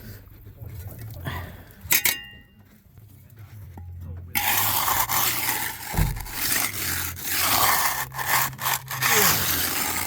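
A hand tool scraping through fresh concrete in repeated strokes with short breaks, cutting a rebate into the wet slab. The scraping starts about four seconds in, after a single metallic clink about two seconds in, over a low steady hum.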